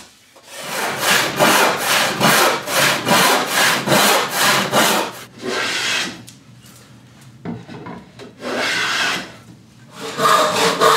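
Hand tools cutting wood: a quick rhythmic run of strokes for about five seconds, then two separate longer hand-plane strokes along a board edge with a pause between them.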